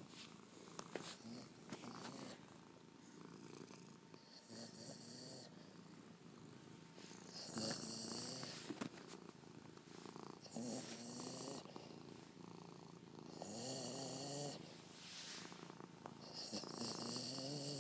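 Labrador making a purr-like rumbling in her throat, trying to imitate a cat purring. It comes in bouts about a second long, roughly every three seconds, each rising a little in pitch.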